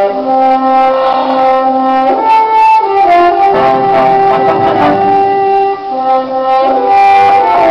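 Orchestral score in which brass, mostly French horns, hold long notes that step from one chord to the next. The music swells in at the start and grows fuller about halfway through.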